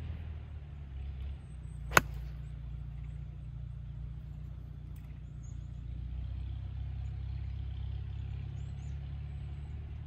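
A golf club striking the ball on a full approach shot: one sharp crack about two seconds in. A steady low rumble runs underneath.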